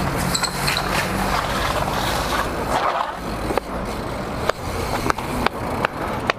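BMX bike rolling fast along a concrete sidewalk: a steady rush of tyres and air, with a series of sharp knocks and rattles in the second half.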